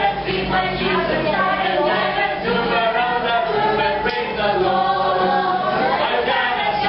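A group of children singing a song together with adults leading, accompanied by a strummed acoustic guitar.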